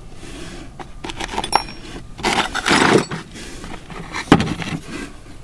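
Old metal tools being rummaged through in a wooden toolbox: loose pieces clinking and scraping against each other and the box, with a short ringing clink about a second and a half in and a sharp knock near the end.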